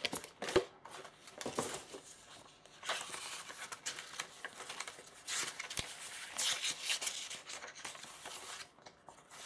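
Rustling and crinkling of paper and plastic kit packaging being handled, with a couple of sharp clicks.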